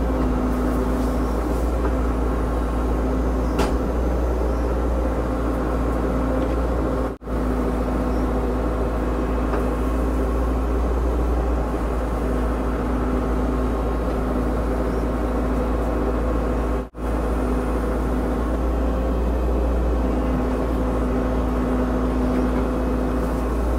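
A Cat 304 mini excavator's diesel engine running steadily while it digs out a ditch. The engine note holds an even pitch, and the sound cuts out for an instant twice.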